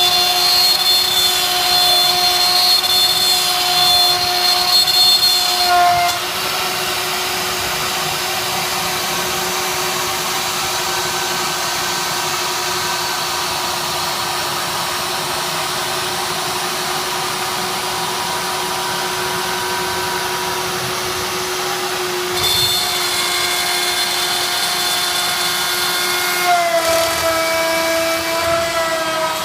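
CNC machine running: a steady motor whine made of several held tones, louder for the first six seconds, then quieter, and stepping up again and shifting pitch twice near the end.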